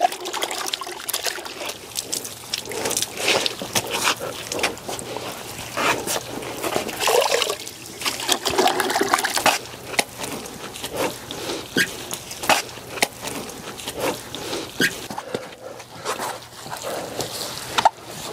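Chenille wash mitt being sloshed around in a plastic bucket of water, with irregular splashes and dribbles.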